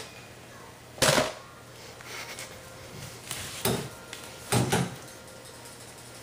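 A few short knocks and clatters, the loudest about a second in and two more in the middle, over a low steady hum.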